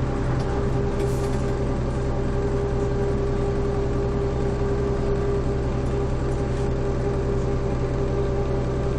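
Mercedes-Benz OM447hA straight-six diesel of a Jelcz M122MB city bus, with its ZF 4HP590 automatic gearbox, running steadily at an even speed: a constant drone with a few steady tones that neither rise nor fall.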